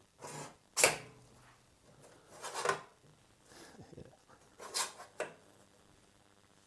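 Barn door leaves on a Fresnel light attachment being swung and handled: a sharp click about a second in, then a few shorter rubbing and scraping handling sounds.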